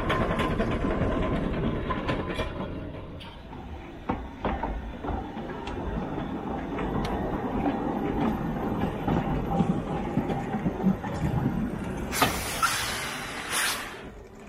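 Narrow-gauge steam locomotive working, a steady noisy rumble with scattered clicks. Near the end a loud hiss of escaping steam lasts about a second and a half.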